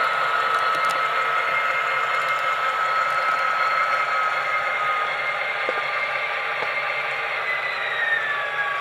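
Digital sound decoders in two model diesel locomotives, an MTH SD70M-2 with Proto 3 sound and an Athearn AC4400 with Tsunami sound, playing diesel engine and turbo sound through their small onboard speakers: a steady, tinny engine noise with a whine that slides down in pitch near the end.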